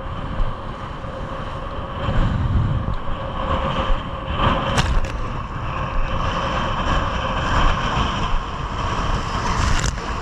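Strong gusty wind buffeting the microphone, a heavy uneven rumble over a steady rushing noise, with a faint steady hum beneath.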